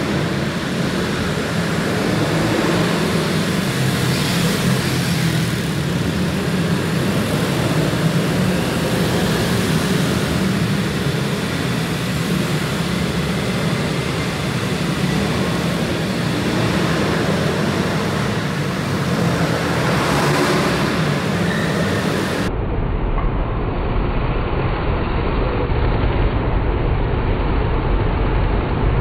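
Several pit bike engines running as the bikes lap a kart track, a steady mechanical drone. About three quarters of the way through, the sound abruptly turns duller as the high end drops out.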